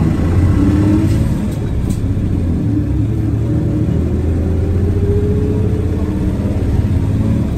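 Nissan Diesel Space Runner city bus running, its diesel engine giving a steady low rumble. A few seconds in, the engine note rises steadily as the bus accelerates.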